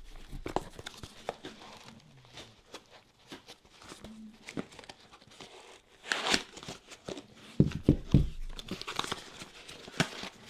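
Cardboard shipping box being cut and pulled open with a knife: tape and cardboard tearing, scraping and crinkling in short bursts, with a louder rip about six seconds in and a few knocks of handling around eight seconds.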